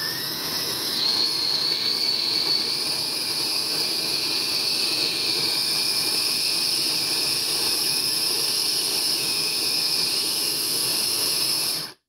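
Sboly electric conical burr coffee grinder grinding beans: a steady motor whir with a high whine that rises in pitch over the first second as it spins up. It cuts off abruptly near the end, the grinder stopping by itself once it has ground the 5-cup dose it was set for.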